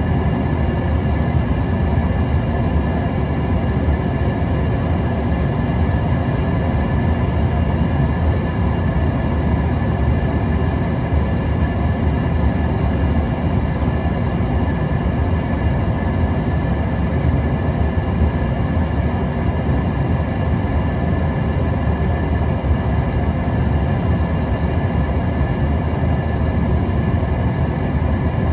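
Steady cabin noise inside an Embraer ERJ-145XR regional jet: a constant rumble and rush of jet engines and airflow, with several steady high whining tones over it from its tail-mounted Rolls-Royce AE 3007 turbofans.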